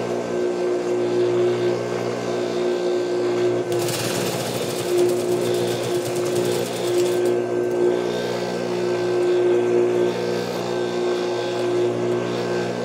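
Juki industrial sewing machine running: a steady motor hum throughout, with stretches of louder stitching noise as the patchwork rug is fed under the needle.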